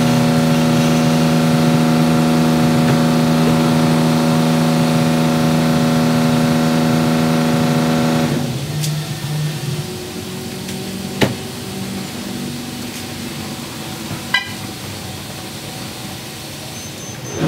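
Steady motor hum made of several even tones, cutting out about eight seconds in. It leaves a quieter hiss with two sharp clicks, then comes back right at the end.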